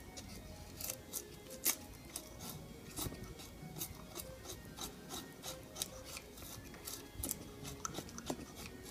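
Narrow-bevel knife blade shaving curls down a wooden stick to make a feather stick: short rasping scrapes, about three strokes a second, one sharper stroke near the two-second mark. The narrow bevel bites into the wood.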